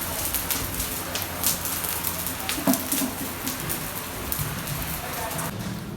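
Food cooking over an open fire: a steady sizzling hiss dense with small crackles and pops, with one dull knock about halfway through.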